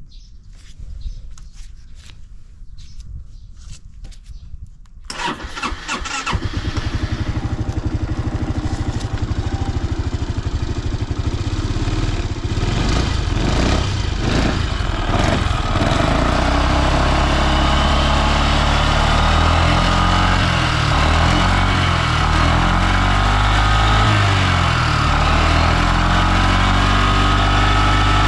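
Honda PS250 scooter's single-cylinder four-stroke engine started about five seconds in after a few quiet clicks, catching and settling into a steady idle, running with no abnormal noise.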